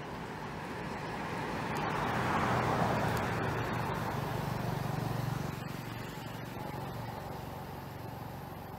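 A motor vehicle passing by: its tyre noise and low engine hum swell to a peak about three seconds in, then fade away over the next few seconds.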